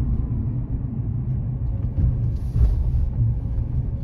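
Steady low rumble of a car's engine and tyres on the road, heard from inside the cabin while driving. There is a brief swell of noise about two and a half seconds in.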